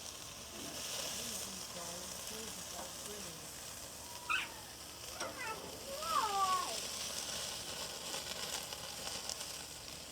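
Hamburgers and hot dogs sizzling steadily on a hot charcoal grill. A few short gliding whistle-like tones come over it about four to seven seconds in.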